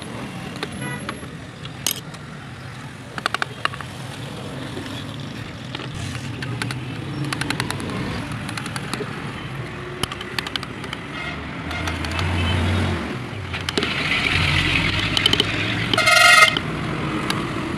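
Hand carving gouges cutting into a wooden relief panel: scattered sharp clicks and scrapes as chips come away, over steady street traffic. A vehicle horn toots briefly near the end and is the loudest sound.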